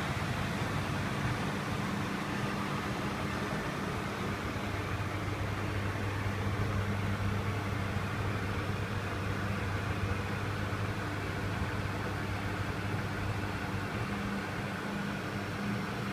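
Lagun FBF 2600 CNC milling machine running: a steady mechanical hum with low tones over a hiss, the low hum growing stronger about four seconds in.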